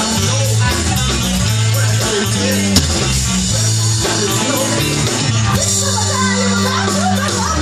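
Live rock band playing a song, with a heavy bass line and electric guitar, heard from among the audience in a small club. One sharp click about three seconds in.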